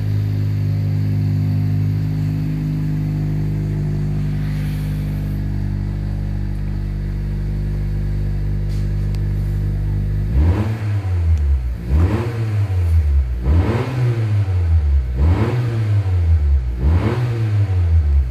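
Honda Civic FC1's 1.5-litre turbo four-cylinder through a Spoon Street Muffler exhaust, idling steadily, then from about ten seconds in revved in about five quick blips, each rising and falling back. A sporty note but not too loud, with revs held to about 3,000 rpm by the stationary rev limit.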